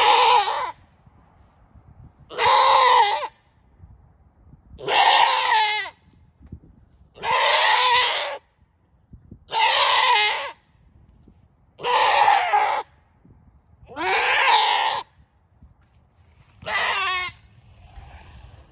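A doe goat in labor bleating loudly over and over: eight long, wavering cries about two and a half seconds apart, the calls of a goat in labor.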